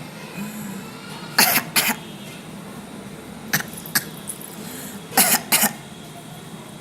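Short coughs in three quick pairs, about two seconds apart: a father coughing and his baby daughter copying his cough.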